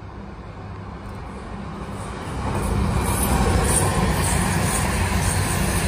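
East Midlands Trains Class 222 Meridian diesel multiple unit passing close by, its underfloor diesel engines humming steadily under the rush of wheels on the rails. The sound swells about two seconds in as the train draws level and stays loud.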